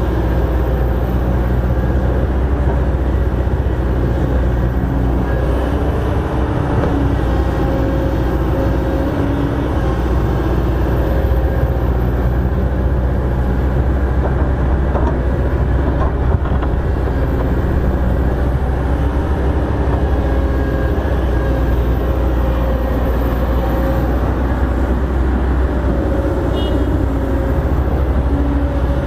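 Kobelco SK200 crawler excavator's diesel engine running steadily under load, with a droning pitched tone from the machine that shifts slightly in pitch as it digs and loads soil.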